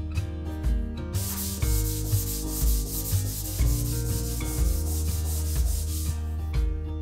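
Sanding a wooden panel: a steady abrasive rubbing hiss that starts about a second in and stops about six seconds in, over background music.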